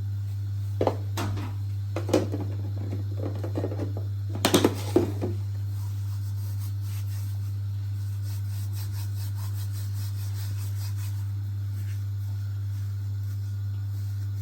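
A few sharp knocks and clinks of a spoon against a bowl while spices are added to pakora batter, the loudest cluster about four and a half seconds in, then faint light ticking. A steady low hum runs underneath.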